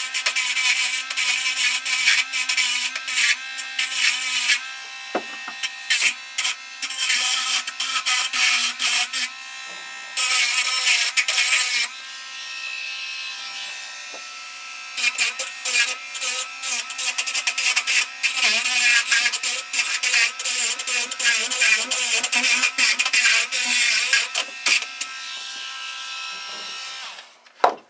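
A small handheld electric rotary grinder, Dremel-type, whining steadily while its bit grinds corrosion off an antenna trap's coil wire. Spells of harsh scraping contact alternate with brief stretches where it just spins. The motor stops shortly before the end.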